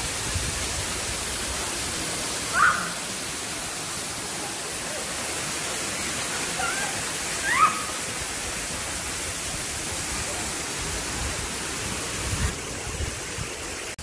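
Waterfall pouring into a rock pool: a steady rush of falling water. Two brief rising calls cut through it, a few seconds in and again about halfway. The hiss thins slightly near the end.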